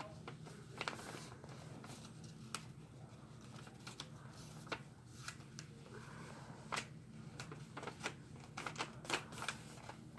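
A sheet of paper being folded and creased by hand: faint scattered crinkles and light clicks, coming more often in the second half, over a low steady room hum.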